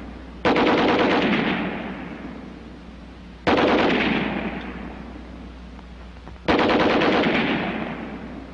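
American .30-caliber heavy machine gun (Browning M1917A1, water-cooled) on a tripod, firing three short bursts of rapid automatic fire about three seconds apart. Each burst starts sharply and trails off in a long echo.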